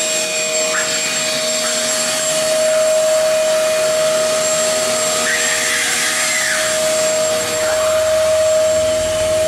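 Vacuum cleaner motor running steadily, a constant whine over an even rushing hiss, with no change in speed.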